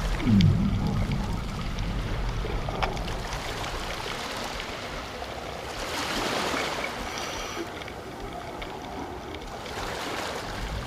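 Running water, a steady rushing that swells midway, with one brief low sound falling in pitch right at the start.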